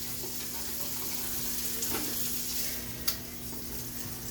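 Hamburger patty frying in a pan, a steady sizzling hiss, with one sharp click about three seconds in.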